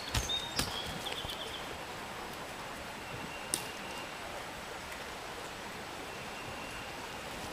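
Outdoor open-air ambience: a steady hiss, with a few short high bird chirps in the first couple of seconds and a few soft knocks, one about three and a half seconds in.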